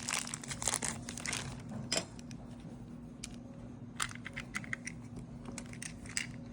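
Plastic packaging crinkling for about two seconds, then scattered light clicks and taps as small plastic toy microscope slides are unwrapped and handled.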